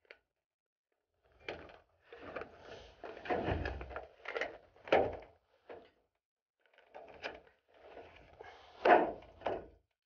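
Metal rain gutter handled on a corrugated metal roof: irregular clunks, knocks and short scrapes as the section is shifted and fitted, the loudest knock about nine seconds in.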